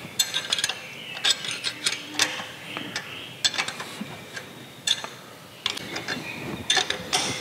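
Ratchet wrench clicking in about seven short runs, tightening the bolts that hold a steel angle-iron back rail fence onto a surface grinder's magnetic chuck.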